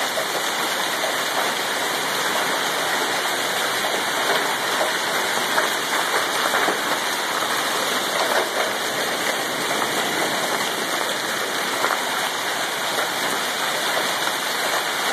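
Hailstorm: large hailstones and rain falling and striking the ground, a dense, steady noise with a few slightly louder hits.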